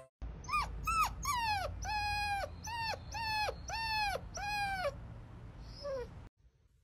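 Young puppy whimpering in a string of about ten short, high cries. The first few fall in pitch and the later ones are held a little longer. A last, fainter cry comes near the end, and then the sound cuts off suddenly.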